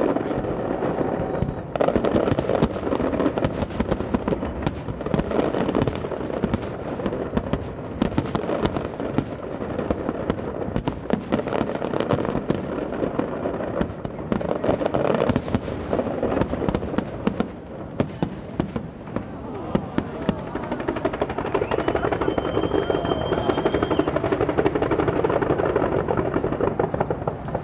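Fireworks display going off continuously: a dense run of sharp bangs and crackles over a constant rumble. A steady high whistle sounds for about two seconds, roughly two-thirds of the way through.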